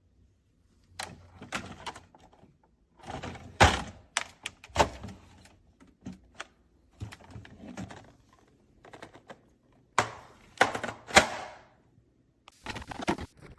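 Clear plastic slide-out organizer being handled: irregular hard plastic knocks, clicks and rattles in short clusters, a few of them sharp and loud.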